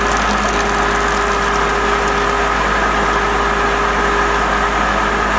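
Truck-mounted core drilling rig's engine running steadily at a constant speed, with a steady hum.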